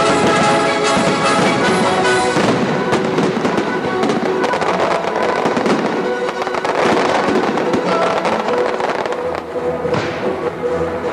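Aerial fireworks bursting and crackling in rapid succession over orchestral music.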